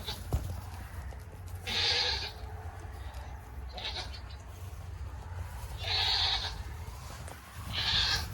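Goats bleating: four short calls spaced about two seconds apart.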